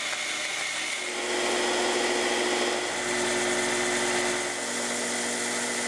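Shop power tools running steadily: a band saw cutting a small block of teak in half, then a belt sander. The motor's tone shifts a couple of times.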